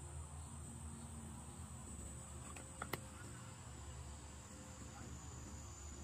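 A steady low rumble with a thin high whine, and two sharp clicks in quick succession about three seconds in.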